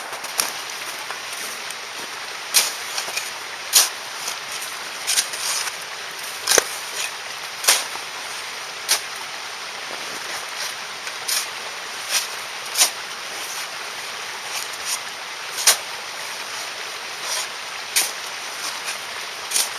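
Driftwood campfire crackling: irregular sharp pops, about one every second or so, some louder than others, over a steady hiss.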